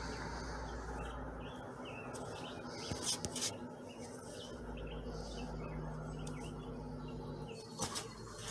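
Two Border Collie puppies play-fighting on wooden deck boards: soft scuffling, with a few sharp clicks about three seconds in and again near the end. Faint short bird chirps run through the first half.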